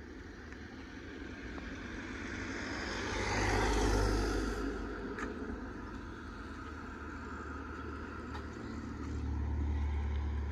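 A car driving past on the road: its tyre and engine noise swells to a peak about four seconds in and then fades. A second vehicle's engine rumble rises again near the end.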